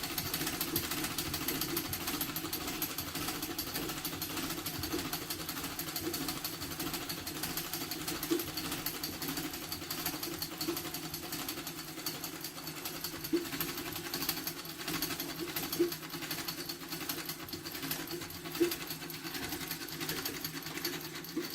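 Old Singer treadle sewing machine, freshly oiled, running steadily: a fast, even mechanical clatter with a few louder clicks.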